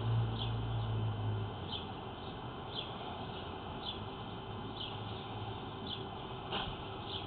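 Short, high, falling chirps repeat about once a second over a steady hiss. A low hum fades out about a second and a half in.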